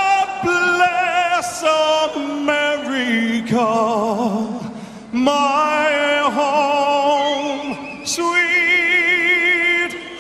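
A man singing solo into a microphone, holding long notes with a wide vibrato, with a brief breath-break about halfway through.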